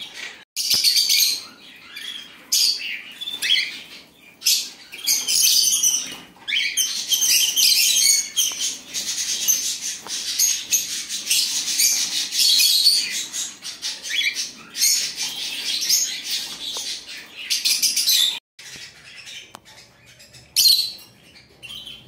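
Small cage birds chirping and twittering, many quick high calls overlapping almost without a break; near the end they thin out, with one loud burst of calls.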